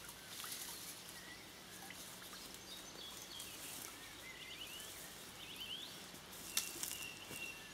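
Water dripping off a crayfish lift net as it is hauled out of a stream, with a few short, high bird chirps and one sharp click near the end.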